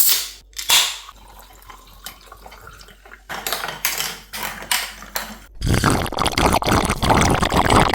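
Two sharp snaps, a few short bursts, then from about halfway in a dense, crackling rush of liquid: carbonated mineral water being poured into a glass over ice and fizzing.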